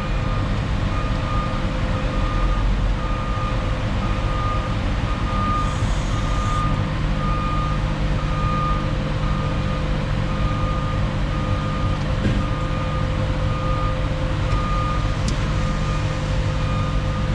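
A vehicle reversing alarm beeps evenly about once a second over the steady low running of the concrete mixer truck's diesel engine, which is driving the drum to bring the concrete to the chute. The engine note firms up about six seconds in.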